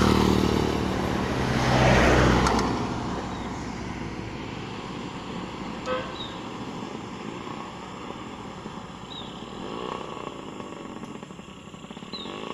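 Yamaha RX-King single-cylinder two-stroke motorcycle with a kolong exhaust accelerating hard past, loudest about two seconds in, then fading into the distance.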